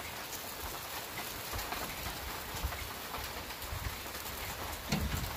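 Steady rain hissing and pattering, with a few faint ticks and a dull knock near the end.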